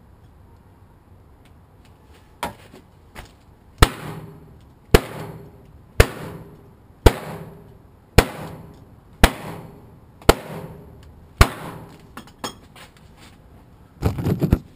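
A steel bar striking a Kevlar test panel hard and repeatedly, about once a second for eight blows, each hit sharp with a short ring after it, following two lighter taps. Near the end comes a burst of close clattering as the camera is handled.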